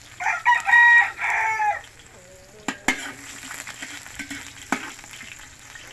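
A rooster crows once, loud, for about a second and a half near the start. After it, onion and garlic sizzle in hot oil in a large aluminium wok, while a metal ladle stirs and clicks sharply on the pan a few times.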